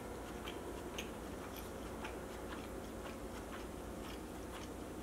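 Close-miked chewing of a bite of chapati wrap, with faint, irregular mouth clicks and smacks.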